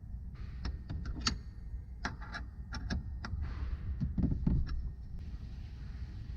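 A run of short clicks and knocks, as of metal parts or tools being handled, over a low steady rumble; the knocking stops about five seconds in.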